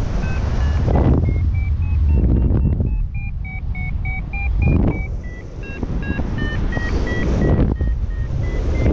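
XC Tracer Maxx paragliding variometer sounding its climb tone: short beeps, about three a second, whose pitch wavers up and down, the sign that the glider is in rising air. Under it, wind buffets the microphone in gusts, and this is the loudest sound.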